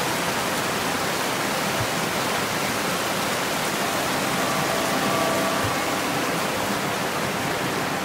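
Shallow mountain river rushing over rocks and small rapids: a steady, even rush of water.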